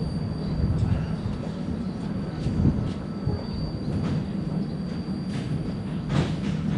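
A stationary diesel passenger train idling at a station: a steady low engine hum with a faint, steady high-pitched whine, and a few light knocks.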